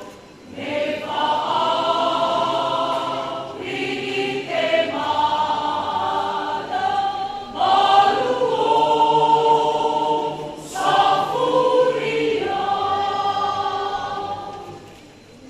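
Church choir of pastors singing a hymn, with held phrases parted by short breaks; the singing fades away near the end.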